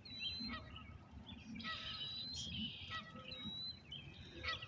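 Geese honking several times at irregular intervals, with small birds chirping and a low steady rumble underneath.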